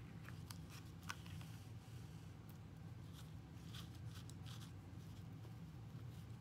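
Faint rustling and scratching of yarn and a plastic weaving needle being drawn through the string warp of a cardboard loom, with fingers pressing the weave down, as a scatter of soft clicks over a low steady hum.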